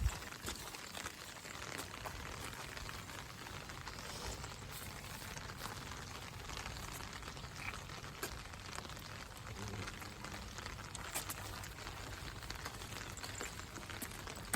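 Steady rain falling, a continuous hiss full of small drop ticks.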